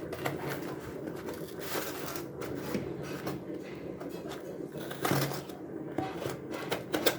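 Hands opening a shipping package: rustling, crinkling packaging with scattered sharp clicks and taps, the loudest about five and seven seconds in.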